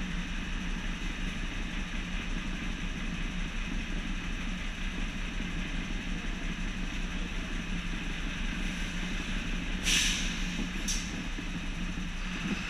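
A fire engine's diesel engine idling steadily while the truck stands still. Near the end there are two short hisses of compressed air from its air brake system: one loud hiss of about half a second and a shorter one a second later.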